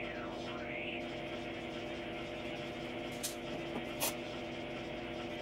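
Steady mechanical workshop hum made of several low steady tones, with a few short squeaks near the start and two sharp clicks about three and four seconds in as the concrete press is handled.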